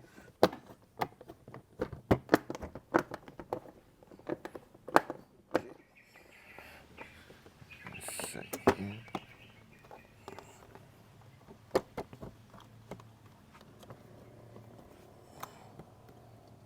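Hands working on a car seat's plastic trim and switch housing: a rapid run of sharp clicks and knocks over the first six seconds, then scattered single taps and a brief scraping, squeaky patch about eight seconds in.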